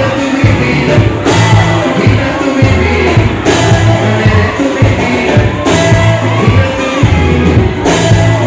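Live band music with singing over a heavy, pulsing bass line, played loud through a concert PA with poor sound quality.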